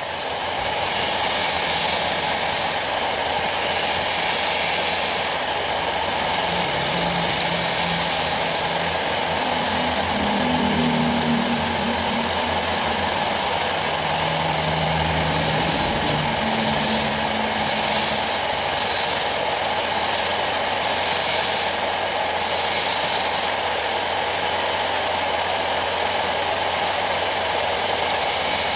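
A small electric motor running steadily, with a constant hiss and no change in speed.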